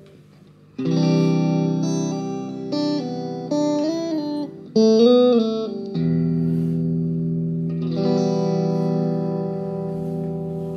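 Electric guitar played through a kit-built Moody Sounds tremolo pedal and a Marshall JVM combo amp. A chord is struck about a second in, then comes a run of single notes with bent pitches, and then two chords about two seconds apart are left to ring.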